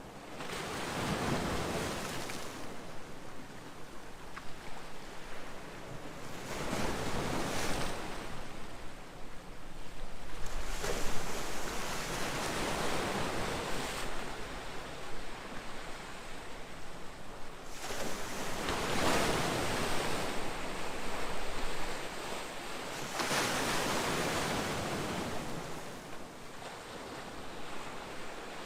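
Calm sea waves breaking and washing up on a shore, the surf swelling and falling away every few seconds.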